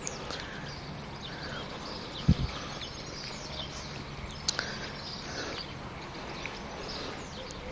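Small songbirds chirping and twittering at many short, scattered calls, with a dull low thump about two seconds in and a sharp click a couple of seconds later.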